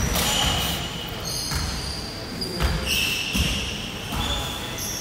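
A basketball bouncing a few times on a hardwood court, with short high sneaker squeaks on the polished floor, echoing in a large gym.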